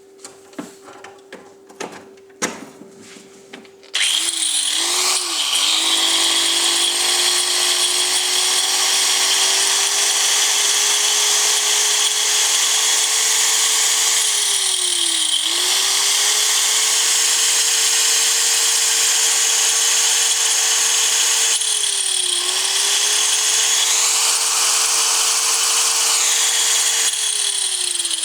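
A 1200 W angle grinder (Dniepromash MShU 125-1200) with a diamond disc fitted, switched on after a few handling clicks about four seconds in. It runs up to speed with a steady whine, twice its speed dips briefly and recovers, and it begins to spin down near the end. It is a test run after repair under the light load of the disc, and the grinder runs normally.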